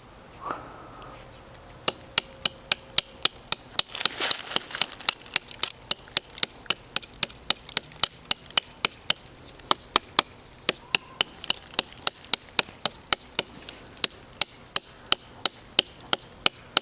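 A folding knife's steel blade chopping repeatedly into the hard, dry wood of a long-dead fallen tree, about three sharp strikes a second, as a test of blade toughness.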